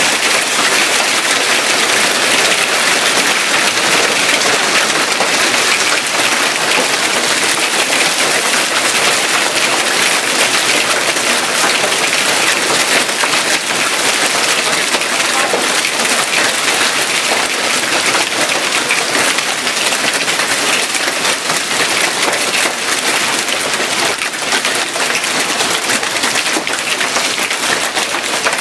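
Hailstones pelting down in a heavy hailstorm: a dense, steady clatter of countless small impacts.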